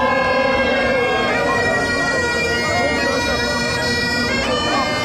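Bagpipes playing a tune over steady drones, the melody stepping to a new note about a second in and again near the end, with crowd chatter underneath.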